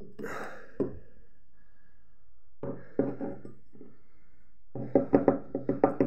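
Small glass bottles handled on a wooden tabletop. A short knock comes about a second in, and two runs of rapid juddering scrapes follow, the later and louder one as a bottle is slid across the wood.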